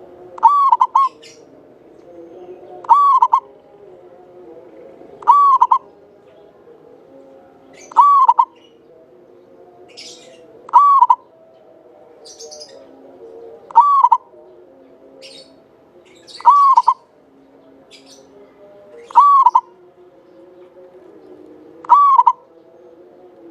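Zebra dove (local Javanese perkutut) cooing: nine loud, clear coo phrases, each about half a second long, repeated evenly about every two and a half seconds. Softer low tones run underneath, with a few faint high chirps between the phrases.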